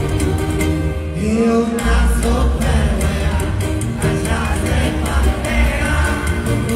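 Live band music heard through a concert sound system, with a man singing into a microphone. A heavy bass line comes in about two seconds in.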